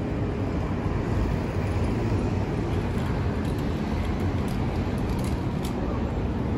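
City street ambience: a steady low rumble of road traffic, with a few faint ticks midway through.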